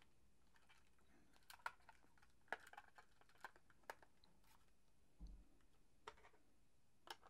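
Near silence broken by faint, scattered clicks and taps, with a soft knock about five seconds in: a 9-volt battery being handled and pressed into a plastic multimeter's battery compartment.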